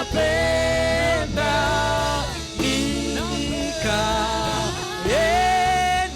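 Church praise-and-worship music: a singer holds long sung phrases, each bending up into the note, over a band with a steady bass line.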